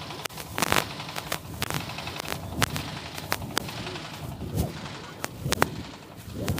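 A run of sharp, irregularly spaced cracks or bangs, about fifteen in all, over a murmur of crowd voices.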